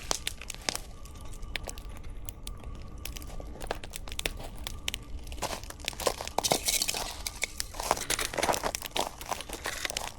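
Campfire crackling and popping, with irregular sharp snaps from the burning wood.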